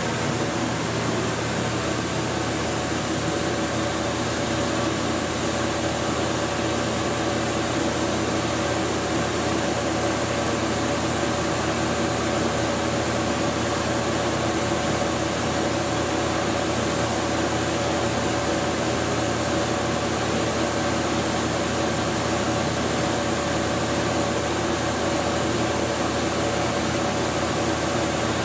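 Walter Helitronic Vision CNC tool grinder running its warm-up program: a steady machine hiss with several steady hum tones in it.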